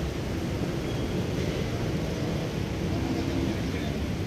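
Steady low rumble of small hatchback car engines running at low speed as the cars creep through the manoeuvre, with outdoor background noise.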